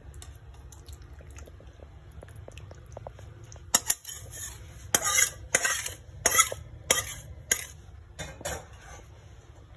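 Metal cookware clinking and scraping as curry is poured and scraped from a pan over fish in a glass dish. The sharp clinks start about four seconds in and come every half second to a second for several seconds.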